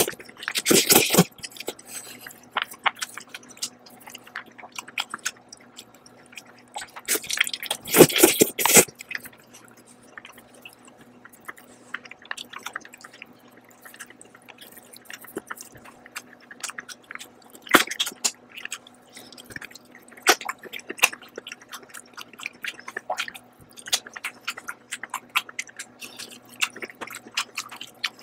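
Close-up eating sounds: noodles slurped into the mouth in two long loud slurps, one right at the start and one about eight seconds in, with chewing and sharp mouth clicks between them.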